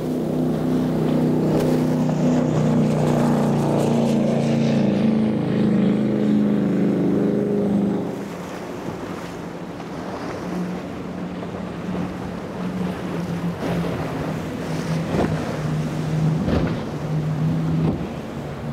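Powerboat engines running loud as a boat passes close, then dropping off sharply about eight seconds in. After that a quieter engine drone carries on, with waves splashing and wind on the microphone.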